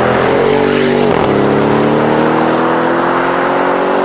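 Audi RS6 accelerating hard, its engine note climbing, with a quick upshift about a second in before the pitch climbs again.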